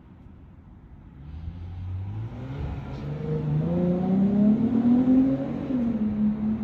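Classic Fiat 500's air-cooled two-cylinder engine, bored out to 750 cc, revving up as the car accelerates. It rises steadily in pitch and loudness, then drops back a little near the end.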